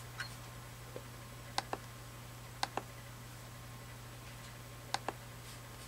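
Clicks of a computer's pointing-device button, mostly in quick pairs, about five times in a few seconds, over a steady low hum.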